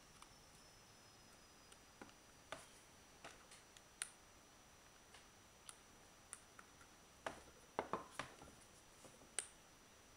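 Scattered small plastic clicks and taps as a Braun Series 1 electric shaver's housing is handled and pried at during disassembly, with a quick cluster of clicks about three quarters of the way in.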